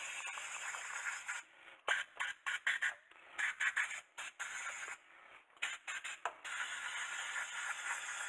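Scratchy scraping of hand polishing inside the cylinder bore of a Mercedes W115 brake caliper, in short stop-start strokes with brief gaps between them.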